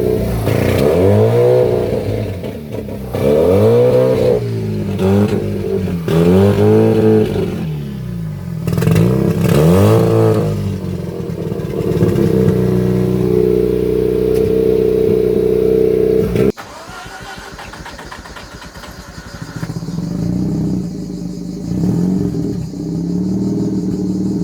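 A car engine free-revving: about eight quick throttle blips, each rising and falling in pitch, then held at steady high revs for several seconds. The note then cuts off suddenly and drops to a quieter, lower running sound.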